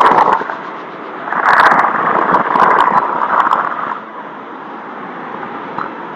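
Boeing 777 airliner's jet engines running as it rolls out along the runway after touchdown. Two loud, gusty surges of noise come in the first four seconds, then a steadier, quieter rush.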